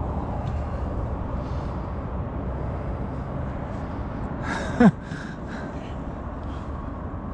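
Steady low rumble of motorway traffic. About five seconds in, a short breathy vocal sound from a person close by, falling steeply in pitch, stands out as the loudest moment.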